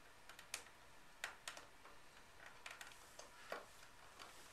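Faint, irregular clicks and ticks of a pocket knife scoring the plastic insulation on copper house wiring and the insulation being twisted and pulled off.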